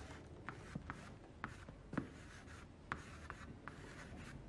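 Faint chalk writing on a blackboard: a string of short, irregular taps and scrapes as numbers are written.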